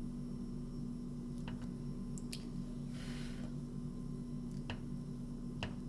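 A fork working through soft roasted eggplant on a plate, peeling away the charred skin: a few light clicks of metal on the plate and a short soft squish about three seconds in, over a steady low hum.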